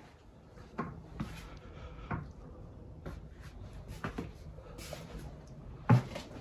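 Several irregular knocks and clunks over a faint background hiss, the loudest about six seconds in.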